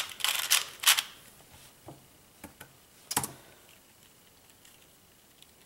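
Quick clicking of a 2x2 puzzle cube's plastic layers being turned while it is scrambled, dense for about the first second, then a few scattered clicks and a quiet room.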